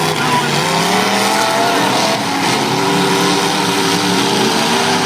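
Several demolition derby car engines running and revving together in a steady loud din, their pitches rising and falling.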